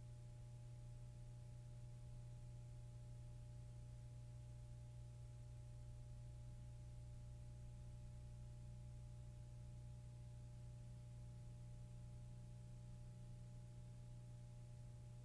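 Near silence: a steady low hum with a few faint, steady higher tones, and no audible taps from the brush on the paper.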